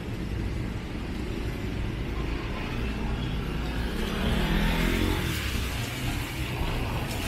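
Street traffic passing: a steady low rumble, with a car going by about four seconds in, its engine and tyres hissing on the wet road.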